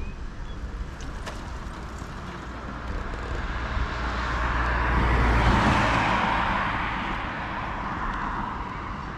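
A car passing close by, its tyre and engine noise swelling to a peak a little past halfway through and then fading away.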